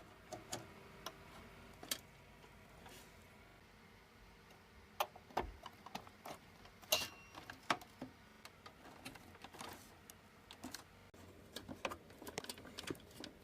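Irregular small clicks and taps of plastic cable connectors being handled and pushed onto computer motherboard headers, a few sharper clicks in the middle.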